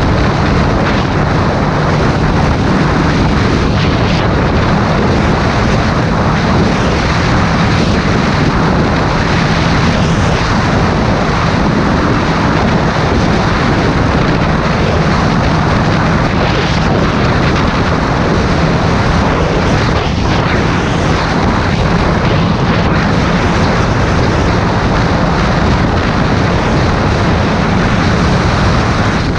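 Heavy wind noise buffeting the microphone over a steady low engine drone from a motorcycle on the move.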